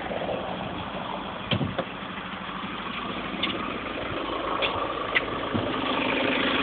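VW Golf 2.0 TDI four-cylinder turbodiesel running at idle, with a few sharp, irregular clicks or knocks over the steady engine sound, which slowly grows louder towards the end. This is the strange noise that appeared after a complete clutch kit replacement.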